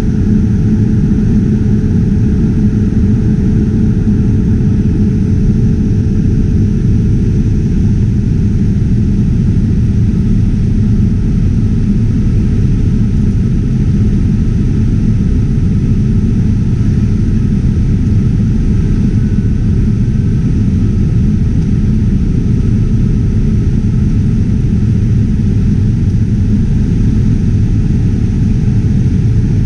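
Steady low rumble of a Boeing 787-9's cabin in flight, the engine and airflow noise unbroken and even.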